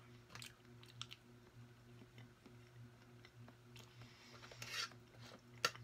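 A fork clicking a few times against a metal baking tray while picking up food, with a brief scrape about four and a half seconds in and the sharpest click near the end. A low, steady hum runs underneath.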